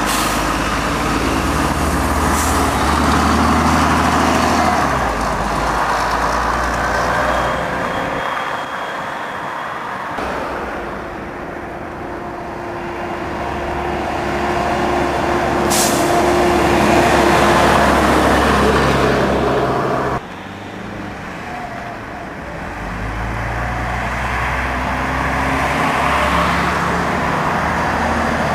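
Diesel double-decker bus engines running as the buses drive past and pull away through traffic, with a steady whine while one accelerates and a short air-brake hiss about halfway through.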